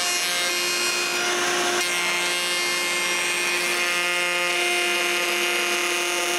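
Router running at steady speed with a high whine, its pattern bit trimming a rough pallet-wood drawer pull flush to a template, with the hiss of wood being cut.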